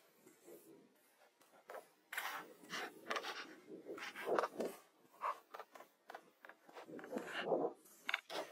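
Stones being handled, with irregular scrapes, rubs and light knocks.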